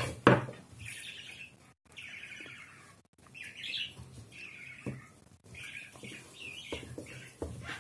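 A small bird chirping and twittering in short repeated calls, with a sharp knock about a third of a second in and a few soft taps later.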